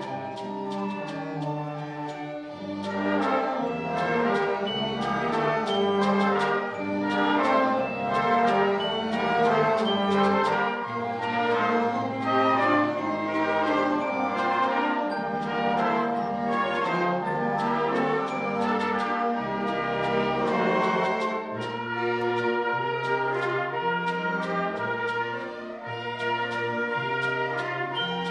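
A youth band of strings, woodwinds and brass playing an arrangement of Christmas carols, swelling louder about three seconds in.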